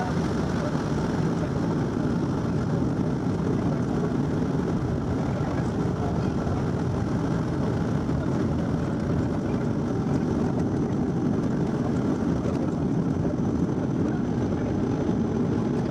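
Steady cabin noise of the Bombardier Q400's turboprop engines and propellers running, heard from inside the passenger cabin with the landing gear down on approach.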